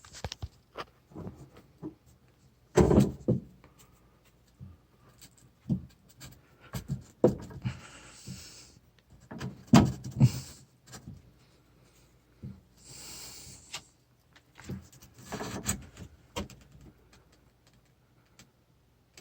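Intermittent knocks, clinks and scraping of hand work on shower-valve plumbing, with a few short hisses; the loudest knocks come about three seconds in and about ten seconds in.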